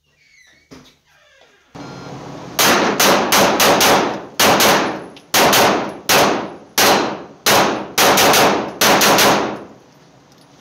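About twenty rapid 9mm pistol shots from an Arex Delta Gen 2, fired in quick pairs and strings over about seven seconds, each with a ringing echo from the indoor range.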